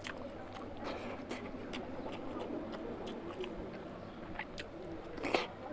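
A man chewing a mouthful of oily mutton fat curry, with frequent wet, sharp clicks and smacks of his mouth and fingers, and one louder smack near the end.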